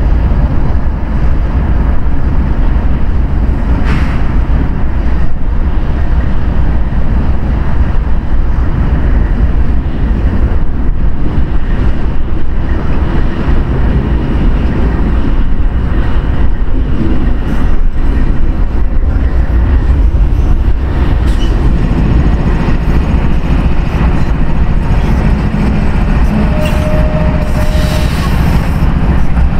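Union Pacific diesel locomotives running at low speed at the head of a train of empty grain cars: a loud, steady, heavy rumble. A brief steady whine sounds near the end.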